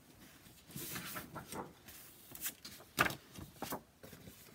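Craft supplies being rummaged and handled: rustling of a plastic-sleeved clear stamp set being picked up, with several sharp knocks, the loudest about three seconds in.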